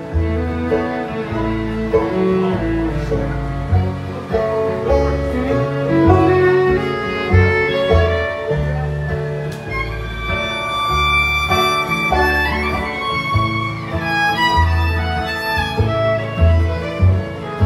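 An acoustic string band playing an instrumental passage. A fiddle plays the lead line, with sliding notes about halfway through. Acoustic guitar and plucked upright bass play underneath.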